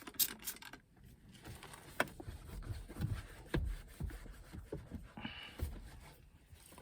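Handling noises as a stick-on trim piece is fitted inside a car cabin: scattered clicks and taps, low thumps and rubbing, with a few sharper clicks about two and three and a half seconds in.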